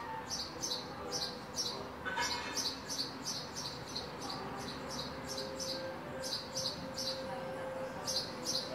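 House sparrow chirping: a run of short, high chirps, about three a second, thinning out briefly midway.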